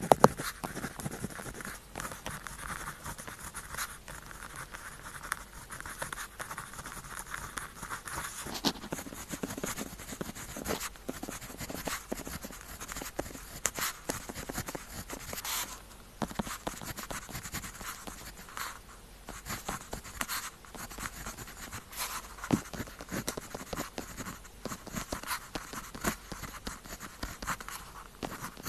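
Pen tip scratching across paper in steady writing strokes, with many short ticks scattered through and a sharp click right at the start.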